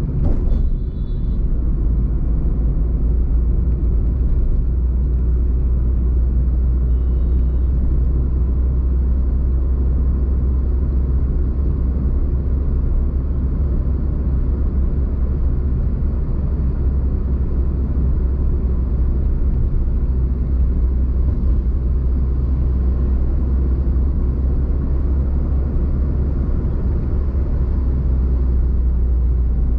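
A car driving, heard as a steady low rumble of engine and road noise. Faint short high tones come about a second in and again about seven seconds in.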